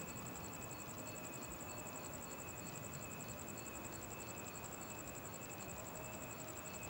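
Steady hiss of an air-band radio feed between transmissions, with a faint steady whine and a fast, even high-pitched pulsing.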